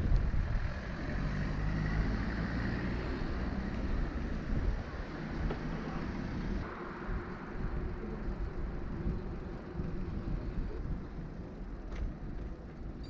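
Riding noise from a bicycle on the road: a steady rumble of wind on the microphone with road and traffic noise.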